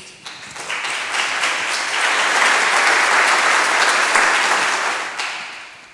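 Audience applause, building over the first two seconds, holding, then dying away near the end.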